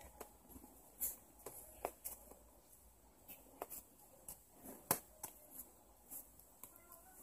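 Kittens' claws scratching and tapping on a cardboard box and the newspaper lining it as they wrestle, a scatter of faint irregular clicks and rustles, the sharpest a little before 5 seconds in.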